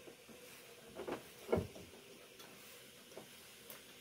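Chilli sauce bottle being handled as the sauce is added: a few short knocks and quick falling plops, the loudest about a second and a half in, then a few faint ticks.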